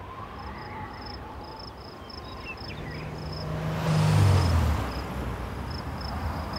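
Crickets chirping in a steady series while a car drives past. The car is loudest about four seconds in, and its engine note drops in pitch as it goes by.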